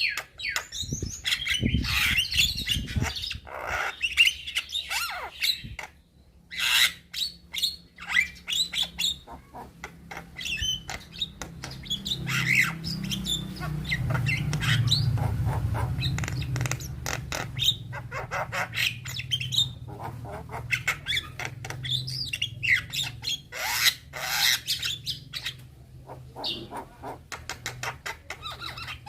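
Young Javan myna (jalak kebo) singing in full voice: a continuous, varied run of harsh chattering and squawking calls mixed with squeaky whistled notes that rise and fall.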